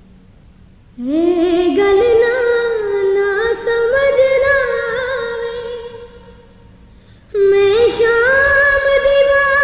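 A woman singing a slow, ornamented Urdu-language noha (mourning lament). Her voice enters with an upward slide about a second in and holds long, wavering lines before fading. A new phrase starts a little after seven seconds.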